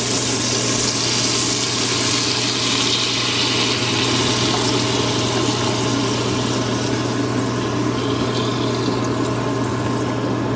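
Chicken broth pouring in a steady stream from a carton into a hot pot coated with bacon drippings, splashing and sizzling as it hits the hot metal, over a steady low hum.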